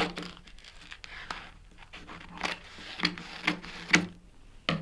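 Paper backing of a vinyl decal being cut off, the paper crinkling and rustling, with several sharp clicks along the way.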